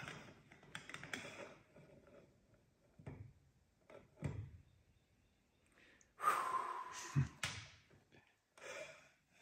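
Scattered light taps, clicks and a thunk of small metal parts and tools being handled while a wrist-pin clip is worked into a piston. A short rushing noise comes about six seconds in, with a dull thud just after it.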